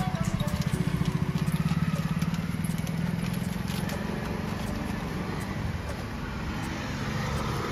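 A motor vehicle's engine running as a fast-pulsing low hum, loudest in the first two and a half seconds and then easing off.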